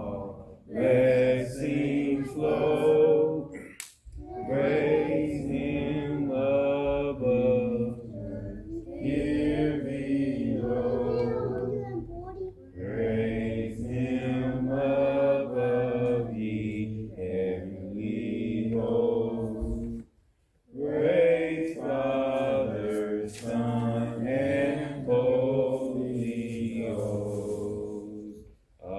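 A small congregation singing a hymn a cappella, several voices together, pausing briefly twice.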